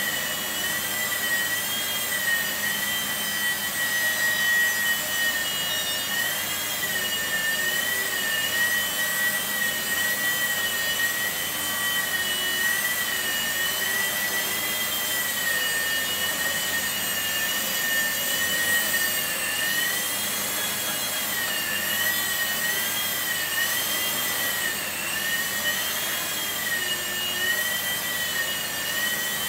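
Blade mSR micro RC helicopter in flight: a high whine from its electric motor and spinning rotor, its pitch wavering up and down as the throttle is worked.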